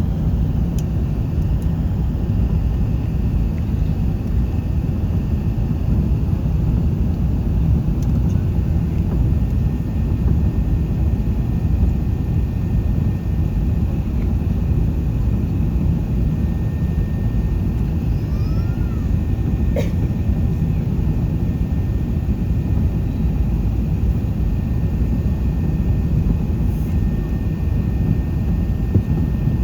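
Steady low rumble inside the passenger cabin of an Airbus A380 in flight, the engines and airflow heard as a dense, even noise. A single sharp click sounds about twenty seconds in.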